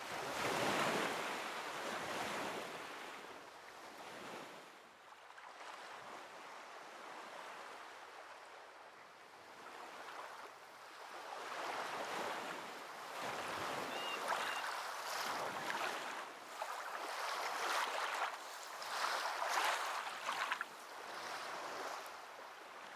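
Sea waves breaking and washing on a shore, swelling and ebbing in slow surges, with wind on the microphone.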